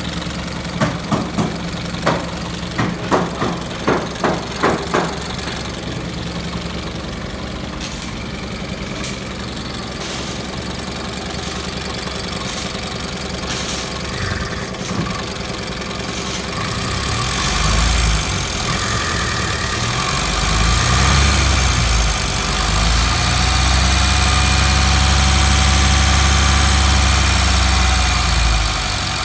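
Austin 10's four-cylinder side-valve engine running, idling steadily, then revved up about halfway through, held at higher revs and easing back near the end. Sharp, evenly spaced clicks sound over the first five seconds.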